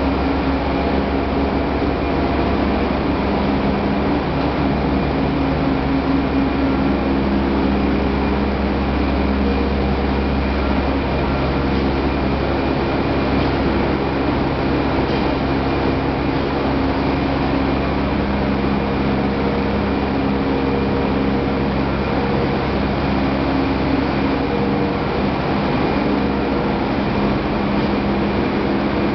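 Corn wet-milling machinery running: a loud, steady mechanical drone with several steady hums over a low rumble.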